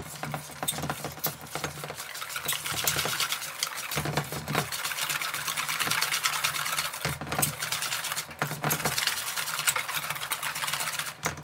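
Wire whisk beating thick cornbread batter in a stainless steel mixing bowl, working in the melted butter: fast wet scraping with a rapid clicking of the wires against the bowl.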